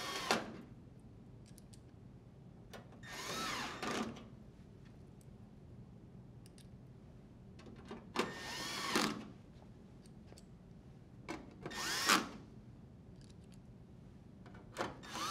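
Cordless drill driver running in five short bursts of about a second each, a few seconds apart, driving screws into a dryer's sheet-metal rear panel. The motor pitch rises and falls with each run, with light clicks in between.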